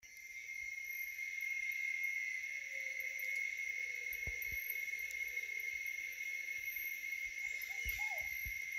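Insects droning at dusk in tropical forest: a steady high-pitched buzz with quick, very high chirps repeating over it. Faint lower calls waver underneath, and a few soft low thumps come near the middle and near the end.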